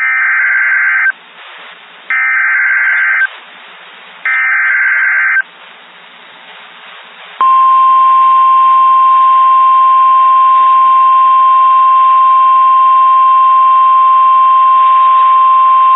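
Emergency Alert System alert: three roughly one-second bursts of buzzy, screeching SAME digital header data with faint static between them. About seven seconds in, a loud steady single-pitch alarm tone begins, the 1050 Hz weather radio warning tone that signals a severe thunderstorm warning is about to be read.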